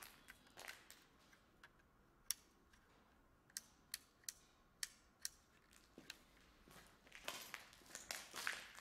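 Faint, sharp clicks and ticks, scattered one at a time, then footsteps scuffing and crunching over a debris-strewn concrete floor near the end.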